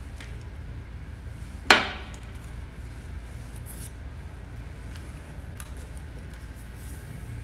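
A single sharp knock about two seconds in, as of a hard object set down or struck on a desk, over a steady low hum. A few faint light clicks follow.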